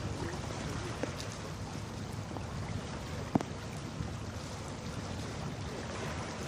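Steady low rushing of wind and water, with one short sharp knock a little over three seconds in.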